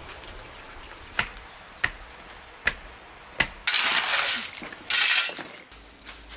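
Four sharp, separate knocks, then a shovel blade scraping and scooping into gravel twice, loud and gritty.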